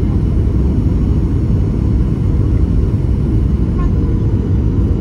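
Cabin noise inside a Boeing 737-700 on the ground after landing: a steady, loud low rumble.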